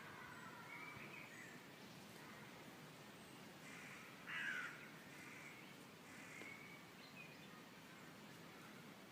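Faint woodland birdsong, light chirping calls, with one louder harsh call about halfway through.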